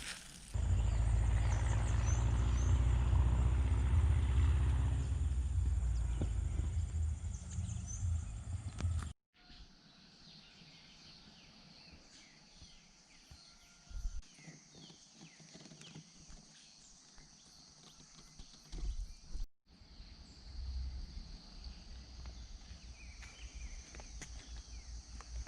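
Outdoor nature ambience in three cut pieces. First a loud low rumble of wind on the microphone for several seconds, then many short bird chirps over a steady high insect drone.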